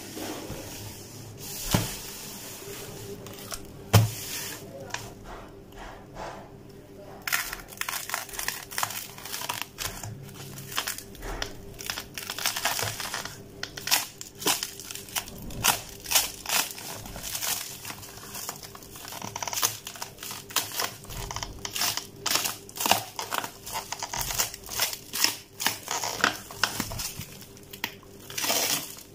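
Clear plastic cling wrap crinkling and tearing in irregular crackles as it is peeled by hand off a packaged LED strip reel. Two sharp knocks come about two and four seconds in.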